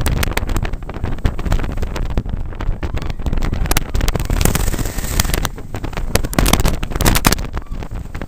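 Roller coaster train running along its track, heard from on board: a dense rattle of clicks and knocks from the wheels and cars, with wind buffeting the microphone.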